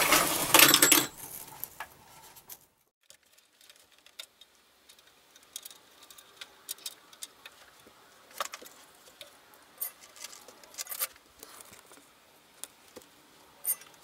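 Sheet-metal amplifier chassis clattering on a wooden workbench for about the first second as it is tipped onto its side, then scattered light clicks and taps of handling and tools.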